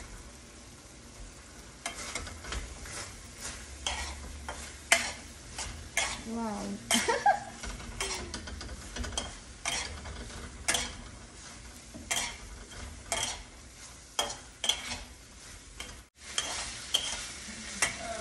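Fried cauliflower pieces being tossed in sauce in a frying pan: a metal utensil scrapes and taps against the pan in irregular strokes over a faint sizzle.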